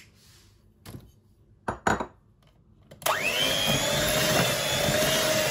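A few sharp knocks, then about three seconds in an electric hand mixer switches on. Its motor whine rises quickly and then runs steadily as the beaters cream butter and sugar in a glass bowl.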